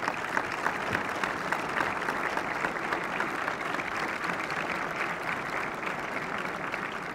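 Audience applauding, a dense and fairly even patter of clapping that eases off slightly toward the end.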